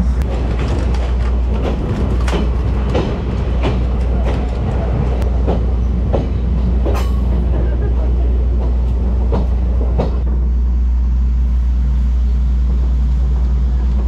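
Kominato Railway Boso Satoyama Torokko trolley train running, its wheels knocking over rail joints about twice a second under a steady low drone. The knocks die away about ten seconds in, leaving a smooth steady run.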